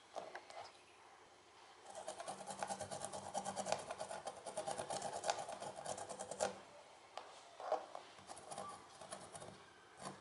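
Kitchen knife cutting orange peel into thin strips on a plastic cutting board: a quick run of small knife strokes clicking against the board for about five seconds, then a few sparser strokes.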